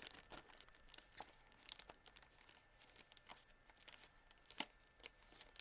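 Faint crinkling and crackling of the clear plastic wrapping on a pack of origami paper as fingers peel it open. It comes as scattered short crackles, with one sharper crackle near the end.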